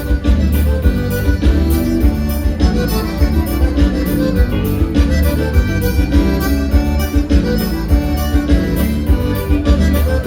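Live gaúcho dance band playing, led by accordion over a strong bass and a steady, even drum beat.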